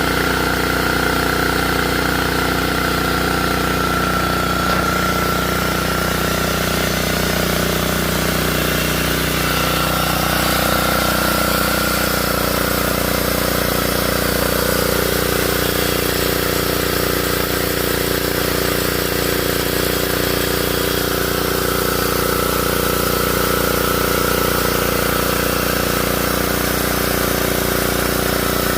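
An engine running steadily for the whole stretch, its pitch pattern shifting once about ten seconds in.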